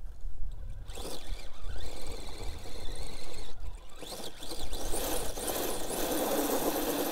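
RC rock crawler's Hobbywing AXE brushless motor and portal-geared drivetrain whining as it is throttled up a steep rock climb, the pitch rising and falling several times as the tires search for grip, easing off briefly just before the middle and then holding a steadier whine near the end.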